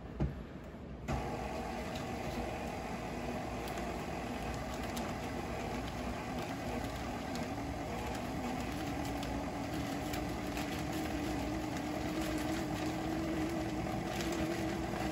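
Electric stand mixer switched on about a second in, then running steadily with its paddle beating peanut butter frosting as powdered sugar is added. A short knock comes just before it starts, and its hum rises slightly in pitch in the second half.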